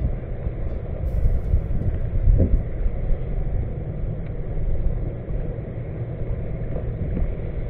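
Steady low rumble of wind buffeting the microphone, with water noise as the kayak moves through the water.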